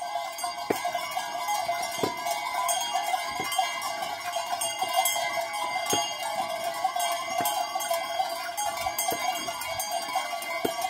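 Many sheep bells clanking and ringing together without a break as a flock of sheep walks along.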